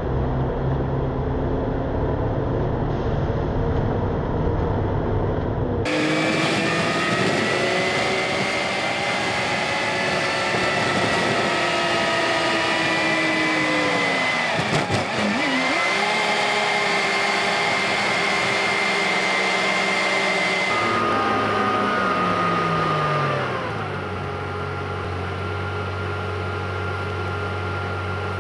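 Express bus under way, its drivetrain whining in tones that rise and fall as it speeds up and slows down, over steady road noise. The sound changes abruptly twice.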